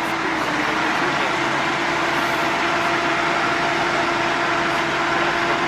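Diesel engines of tractors and a heavy truck running steadily, with a constant droning hum.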